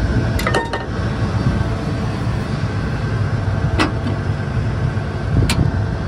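John Deere S790 combine running steadily close by, with a few sharp metallic clicks as the header's float-lock rod is worked to switch the header from rigid to float.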